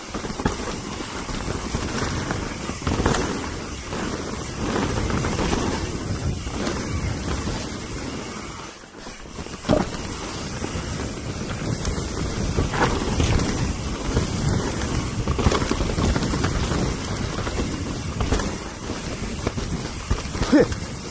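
Mountain bike riding down a dirt trail: wind rushing over the camera microphone and tyres rolling over dirt and roots, with sharp knocks and clatters from the bike over bumps. It drops off briefly about nine seconds in.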